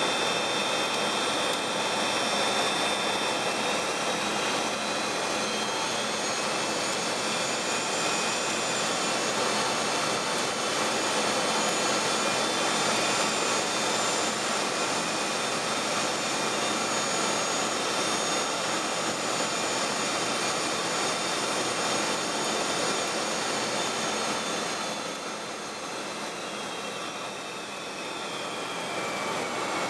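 Jet aircraft engines and airflow heard from inside the cockpit on final approach: a steady rushing noise with a high whine. About 25 seconds in, around touchdown, the whine falls and the noise eases, then it builds again near the end.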